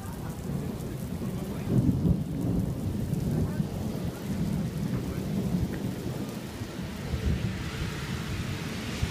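Thunder rumbling and rolling in a derecho thunderstorm over a steady hiss of rain. The rumble is loudest about two seconds in.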